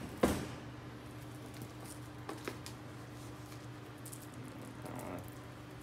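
Folding knife working at the edge of a cardboard board-game box to cut it open: a sharp click about a quarter second in, then faint scratching and light ticks. A steady low hum runs underneath.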